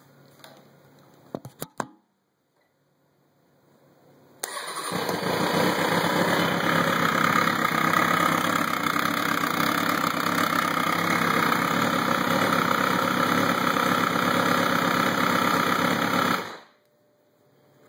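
2003 Kawasaki Ninja ZX-6R 636's inline-four engine starting about four seconds in, running steadily for about twelve seconds, then shut off. It carries the bad noise that appeared after a valve adjustment. A few sharp clicks come first.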